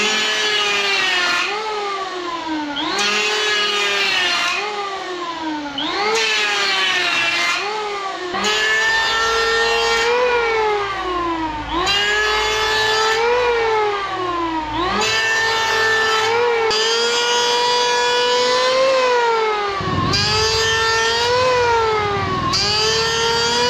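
Powerhouse PHM-1900BX 700-watt electric hand planer, with its dust bag fitted, planing a palo china board in repeated passes. The motor's whine sags in pitch as the blades bite into each pass and jumps back up between passes. The passes come about every second and a half at first, then run longer.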